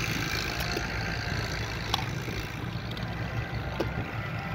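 Tractor engine running steadily at a distance, a low continuous drone.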